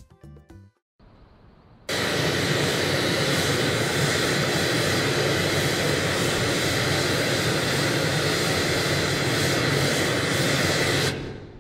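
Steady test noise played through four TOA CS-760 music horn speakers and picked up 50 m away: a loud, even hiss that starts about two seconds in and cuts off shortly before the end, reading about 87 dB SPL.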